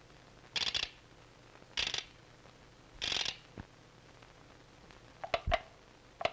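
Cartoon sound effects of a hand crank being turned on a small box: three short ratcheting rasps about a second apart, then a few sharp clanks near the end.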